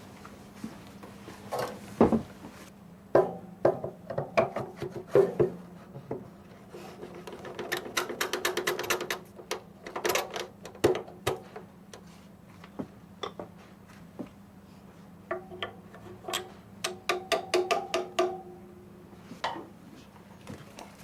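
Irregular knocks and runs of quick, light hammer taps on wooden shrine parts being fitted together, each tap ringing briefly at a few fixed pitches, over a faint steady hum.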